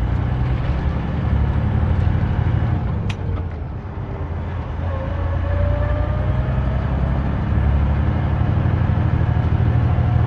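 Semi-truck's diesel engine running as it drives on, a steady low rumble heard from inside the cab that eases about four seconds in and then builds again. A single sharp click sounds near the three-second mark.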